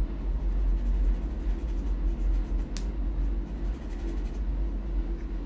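Pencil scratching on paper in short shading strokes, over a steady low hum. One sharp click comes a little before three seconds in.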